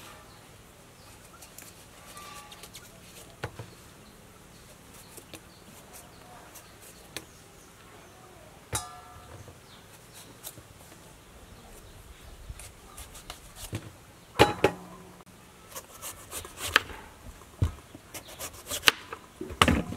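Knife paring and cutting round green eggplants by hand: scattered soft clicks and taps of the blade, with louder, more frequent knocks in the last few seconds as the fruit is handled and set into a steel bowl.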